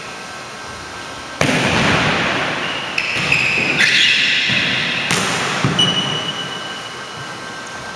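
A volleyball struck with the hands and forearms about four times, each contact a sharp smack that echoes long through a large hardwood-floored gym.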